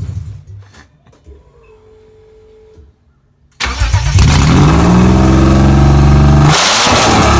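BMW M52 inline-six, freshly swapped into an E30, revving down and dying away in the first second. After about two and a half seconds of near silence it is heard running again, revving up and settling, with a louder, harsher stretch near the end.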